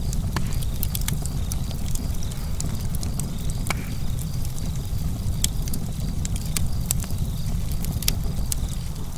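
Campfire burning, with irregular sharp crackles and pops over a steady low rumble.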